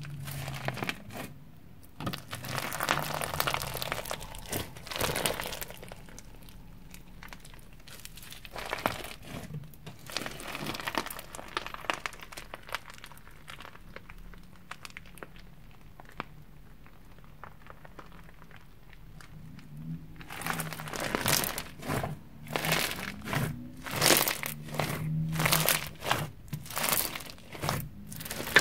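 Crunchy floam slime (sticky slime packed with foam beads) being squeezed and poked, its beads crackling and crunching. It comes in bouts, with a quieter stretch in the middle, then a quick run of sharp crunches near the end.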